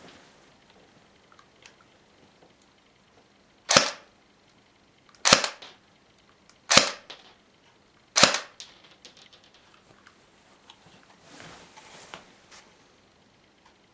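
Four shots from a spring-upgraded Double Eagle M89 electric airsoft pistol, about a second and a half apart, fired through a chronograph at about 70 m/s.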